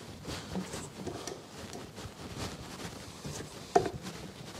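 A hand mixing sticky pizza dough and flour in a stainless steel mixer bowl: soft, irregular patting and squishing, with one sharper tap near the end.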